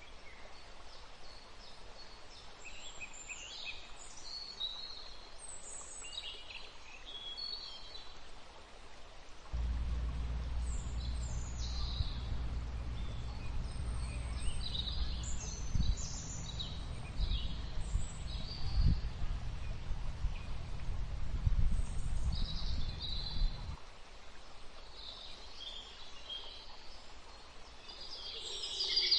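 Small birds chirping and calling in short, scattered phrases. A low rumble sets in about ten seconds in and stops a few seconds before the end, underneath the birdsong.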